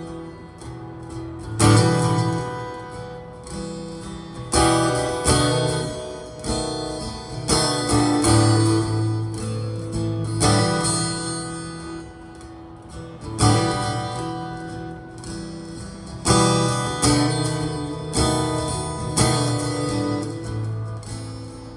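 Fender Hellcat acoustic-electric guitar being strummed, with a chord struck every second or so and left to ring out; the playing stops and the last notes die away at the end.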